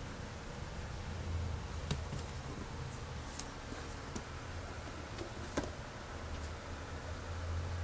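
A few short, sharp handling clicks and taps, about five of them spread through the middle, over a low steady hum.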